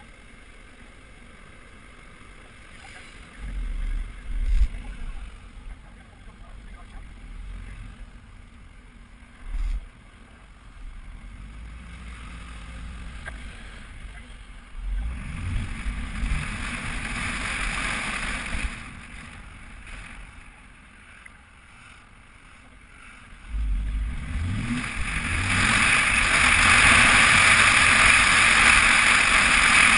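Car wash running: a low machinery rumble with surges of rushing water spray. A few low thumps come in the first ten seconds, and the spray grows loudest in the last few seconds.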